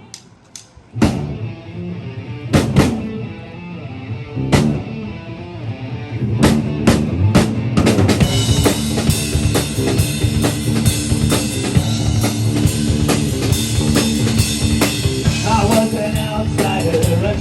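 Instrumental intro of a song: a few scattered drum hits, then steady sustained notes come in, and a full band with a driving drum-kit beat from about eight seconds in. A wavering higher line joins near the end.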